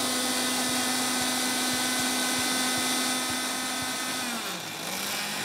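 Countertop blender motor running steadily, dissolving sugar into water for a syrup. A little past four seconds in, the motor winds down, briefly picks up speed again, then slows.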